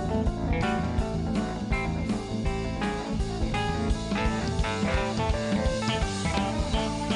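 Blues-rock band playing live in an instrumental break: a guitar lead of quick runs of short notes over drums and a steady low accompaniment.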